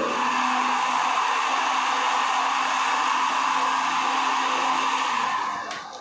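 Electric hot air gun running: its fan blows a steady rushing noise with a faint hum, heating a clear plastic tube to soften it. The noise fades out near the end as the gun is switched off.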